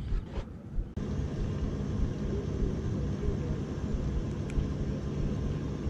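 Honda four-stroke outboard motor running with a steady low hum, which comes in abruptly about a second in.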